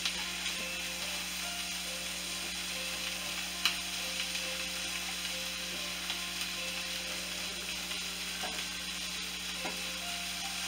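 Diced onions and green bell peppers sautéing in butter in a nonstick skillet: a steady sizzle, with a few light taps of a wooden slotted spoon as they are stirred.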